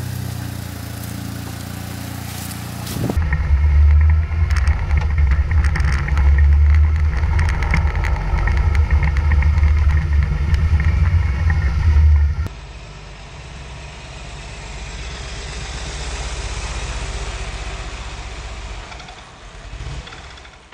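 BMW R1150GS sidecar rig's boxer-twin engine running as the rig rides off. From a camera mounted on the rig, from about three seconds in until about twelve seconds, it is a loud low rumble. It then becomes a softer engine sound that swells a little as the rig passes and fades away near the end.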